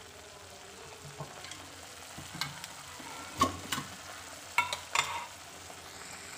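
Ground masala paste sizzling as it fries in oil in a pan, with a spatula stirring it and several sharp knocks against the pan in the middle.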